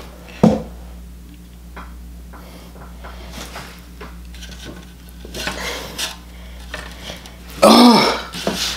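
A man's wordless vocal sounds: a brief sharp one about half a second in, and a loud voiced sound with falling pitch near the end, with faint scattered small sounds between.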